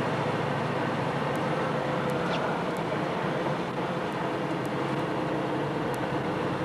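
A car driving, heard from inside the cabin: steady engine and tyre noise.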